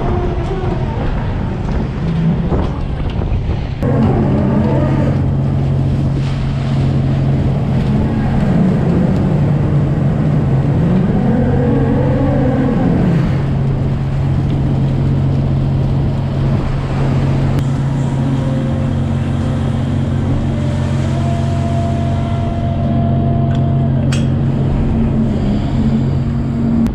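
Fishing trawler's deck machinery running with a steady low hum, over wind and water noise. Around the middle a whine rises and falls a few times.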